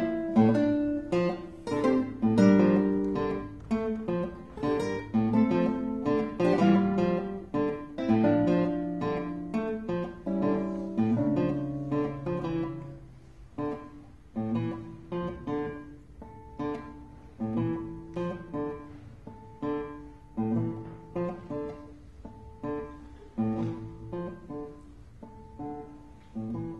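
Two classical guitars playing a newly composed duo piece. Dense, loud plucked notes and chords in the first half thin out about halfway through into quieter, sparser single notes.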